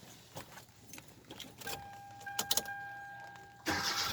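Ignition key clicking in the 2011 Hyundai Elantra's newly replaced ignition switch, a steady thin whine as the ignition comes on, then near the end the engine cranks and starts at once. Starting on one turn of the key shows the hard-starting fault is cured by the new ignition switch.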